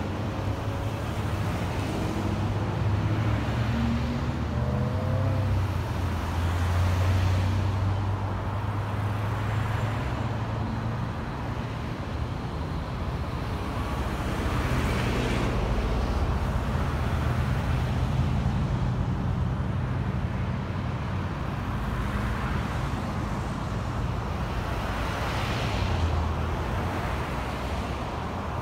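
Road traffic: a steady low engine hum with vehicles passing by one after another.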